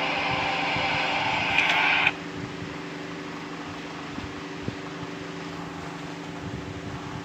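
A loud hissing sound cuts off suddenly about two seconds in, leaving a steady low hum with a few faint clicks.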